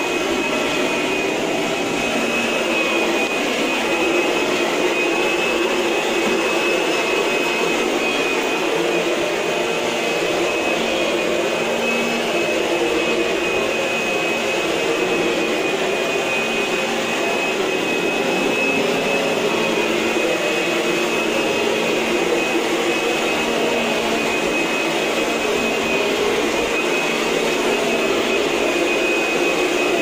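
Upright vacuum cleaner running steadily on carpet, with a constant motor whine and a high note that holds at one pitch.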